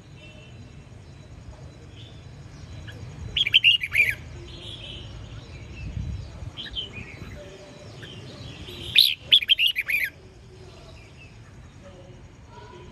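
Red-whiskered bulbul singing: a burst of quick, bright chirping phrases about three and a half seconds in, a short call around six and a half seconds, and another burst about nine seconds in.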